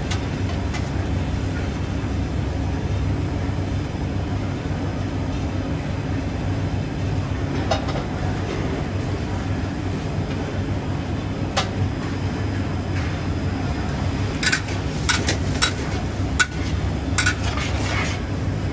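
Steady low roar of a wok burner under a lidded wok of Hokkien mee. Near the end comes a run of sharp metal clanks and clinks as the steel lid comes off and a ladle works in the wok.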